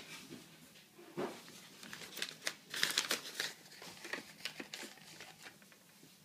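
Paper coffee filter, a Filtropa size 4 cone, crinkling and rustling as it is handled and pressed into a plastic Clever Coffee Dripper. It makes a run of short crackles, thickest about halfway through.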